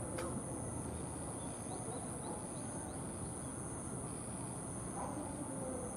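Steady outdoor background noise, with a single sharp click just after the start and a run of faint, quick high chirps about two seconds in.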